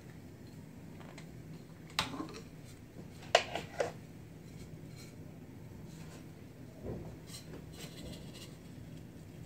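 Small sharp clicks and taps from a glass spice jar and its lid being handled: one about two seconds in, three in quick succession a little later, then lighter clicks and rubbing near the end. A low steady hum runs underneath.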